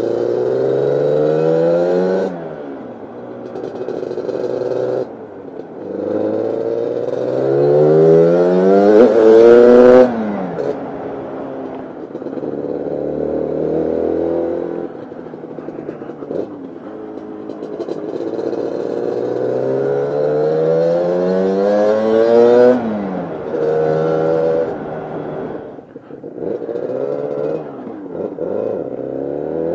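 Lambretta scooter's tuned 275cc Targa Twin two-stroke engine on a Jolimoto expansion chamber, accelerating hard: the pitch climbs steadily in each gear and falls sharply at each gear change, about five times. The loudest pull comes around ten seconds in.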